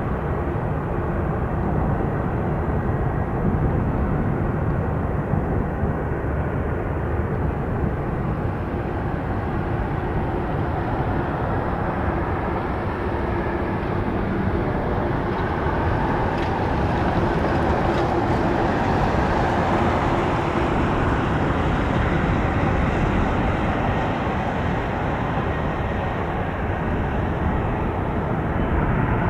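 McDonnell Douglas MD-11F freighter's three jet engines at takeoff power, a steady jet rumble that grows brighter partway through.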